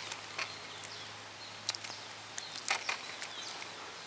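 A few sharp clicks and knocks over a steady low hum as a freshly hooked catfish is swung in on the line and grabbed by hand, with faint bird chirps.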